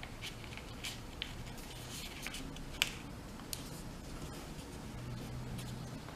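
Sheet of paper being folded and creased by hand, with scattered soft crinkles and a sharper crackle about three seconds in.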